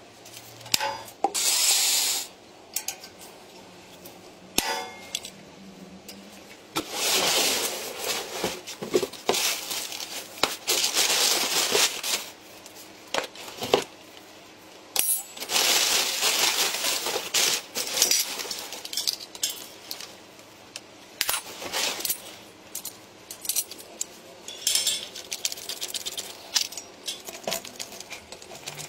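Small brass and metal parts clinking and clattering as they are handled, with several longer stretches of paper rustling from packing paper.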